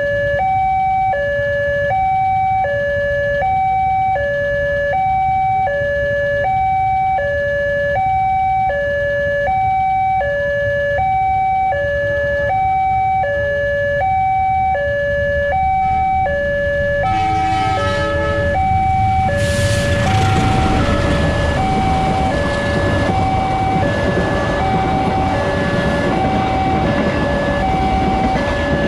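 Electronic two-tone level-crossing alarm, switching between a low and a high tone about twice a second. About 17 seconds in, a passing train's rumble and wheel noise swell up under the alarm, loudest from about 20 seconds on.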